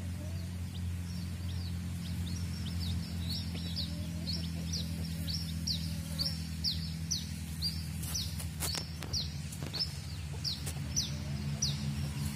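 Domestic chicks peeping over and over, short falling peeps at about two a second, with a few soft clucks from the mother hen. Background music with a steady low drone runs underneath.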